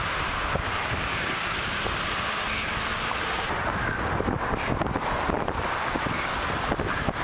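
Wind rushing over a helmet-mounted camera's microphone on a moving bicycle, with low road and traffic rumble beneath it and a few faint clicks.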